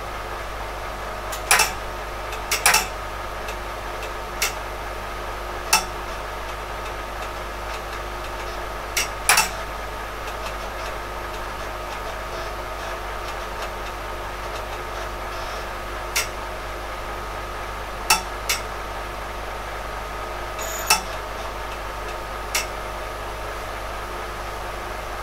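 DEC RX02 8-inch floppy disk drive clunking about a dozen times at uneven intervals, some clunks in quick pairs, while it reads the boot disk and the PDP-11/34A boots RT-11. A steady machine hum runs underneath.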